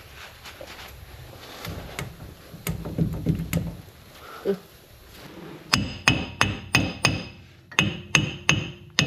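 Hammer blows on the seized rear wheel hub of a Ram 2500, struck to break it free from the axle. After a few low clunks as the hub is rocked by hand, the hammer lands in two quick runs of about five hits each, roughly three a second, every hit ringing metallically.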